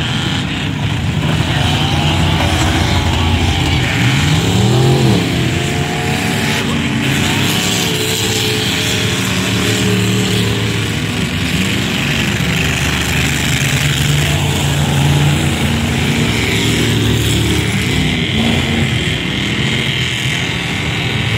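Several enduro race trucks' engines running at speed together, the pitch rising and falling as trucks go by.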